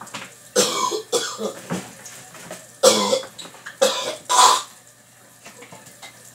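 A person coughing several times in short, harsh bursts, the strongest about three and four and a half seconds in.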